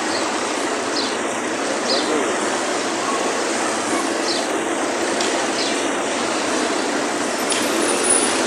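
Steady rushing background noise, with faint voices and a few short high chirps.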